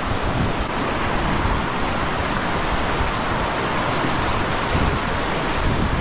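Steady rushing roar of a large waterfall and its river, with uneven low buffeting of wind on the microphone.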